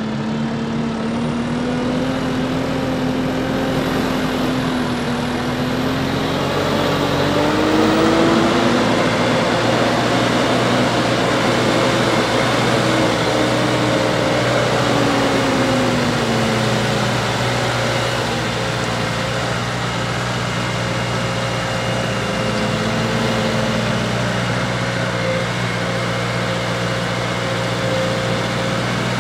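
Case IH Maxxum CVX tractor engine running under load while pulling a five-furrow plough. Its pitch rises and falls several times as the engine speed changes, over a steady low hum.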